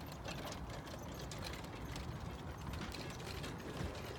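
Horse-drawn carriage on the move: a steady low rumble of the wheels with continual rattling and clicking from the carriage's fittings, and the horse's hoofbeats.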